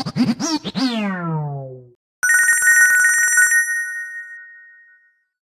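Ringtones from a MigeMax Ck22 Android phone. First comes the end of a melodic tone, whose last note glides downward and fades. About two seconds in, a short burst of rapid, warbling telephone-bell-style ringing starts, stops and dies away.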